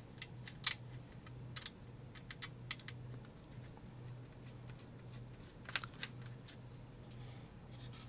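Light scattered clicks and taps of hands handling a laptop's plastic bottom case, with a short run of clicks about six seconds in, over a steady low hum.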